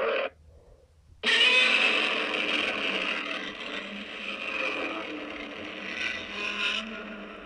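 Custom recreation of the Showa-era Godzilla roar: a short blast, then about a second later one long, harsh, screeching roar lasting over five seconds that cuts off and trails away in echo.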